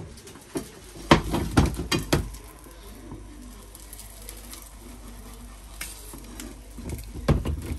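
Several sharp knocks and clicks in the first two seconds and again near the end, with a quieter steady noise between.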